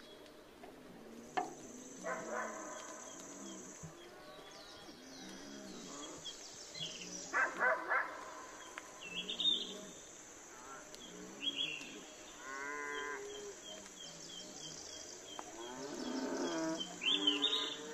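Repeated drawn-out animal calls, with high short chirps above them and a couple of sharp clicks.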